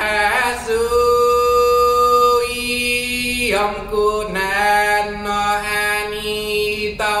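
A single voice singing unaccompanied, a wordless chant of long held notes. It breaks for breath about halfway through and again near the end, the pitch dropping a little for the second phrase.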